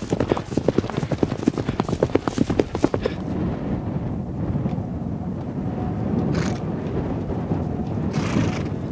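Rapid hoofbeats of a galloping horse on grass for about three seconds, then a steady low rumble of wind on the microphone, with a brief hiss about six seconds in and another near the end.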